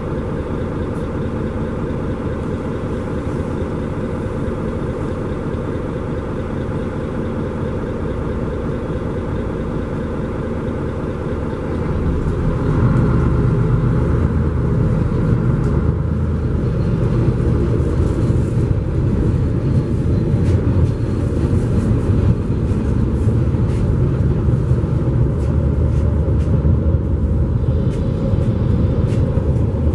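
Mercedes-Benz Conecto G articulated city bus heard from inside the cabin, its engine running steadily at a standstill. About twelve seconds in it grows louder and deeper as the bus pulls away and accelerates.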